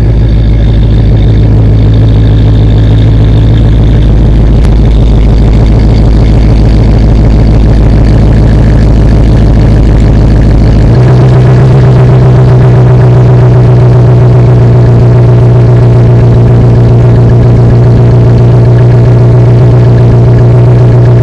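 Modified 5.2 L Magnum V8 of a 1998 Jeep Grand Cherokee ZJ idling steadily while warming up after a cold start. It breathes through long-tube headers, with no catalytic converter and a 3-inch exhaust through a Flowmaster Super 44 muffler. About halfway through, the exhaust note changes to a fuller, deeper tone as it is heard from close behind the tailpipe.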